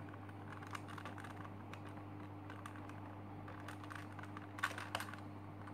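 Plastic layers of a Super Square One (SSQ-1) twisty puzzle being turned by hand: a run of light clicks and rattles, with a louder cluster of clicks near the end. A faint steady hum lies underneath.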